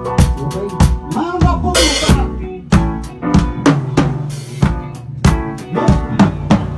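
A live band rehearsing an instrumental passage: a drum kit keeps a steady beat of kick and snare hits, with cymbal crashes about two seconds in and again near four seconds, under keyboards and saxophones.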